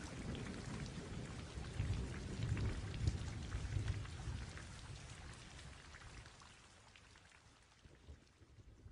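Faint rain-like patter with a low rumble, fading out gradually and dying away about seven seconds in.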